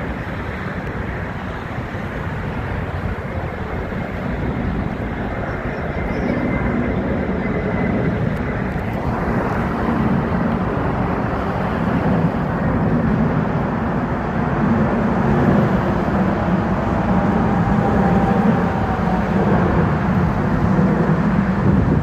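Jet engines of a twin-engine airliner climbing out after takeoff, passing nearly overhead: a steady noise that grows louder throughout.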